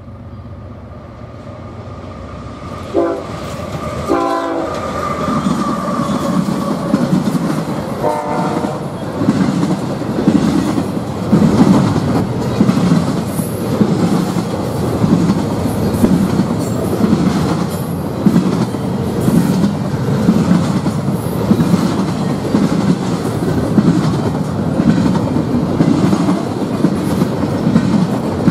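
Double-stack intermodal freight train led by a BNSF diesel locomotive, approaching and passing close by. The horn sounds three times in the first several seconds. Then come the locomotive's rumble and the steady clickety-clack of the container cars' wheels on the rails, growing louder as the train nears.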